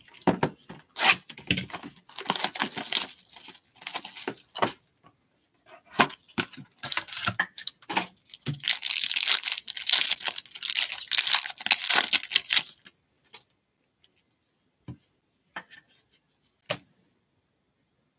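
Foil trading-card pack wrapper being torn open and crinkled by hand in repeated crackling bursts, loudest about nine to twelve seconds in. After that come a few sparse clicks as the cards are handled.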